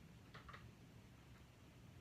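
Faint ticks, about one a second, over near-silent room tone.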